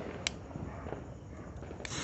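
A single click, then near the end the fuse of a 16-shot aerial firework cake catches and starts to hiss.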